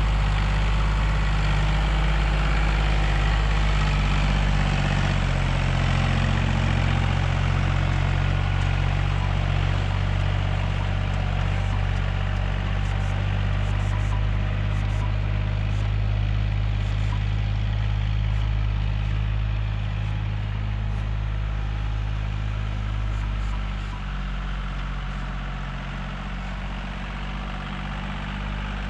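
Tractor's diesel engine running steadily as it pulls a laser land leveler across the field, its note shifting about five seconds in and growing somewhat quieter near the end as it draws away.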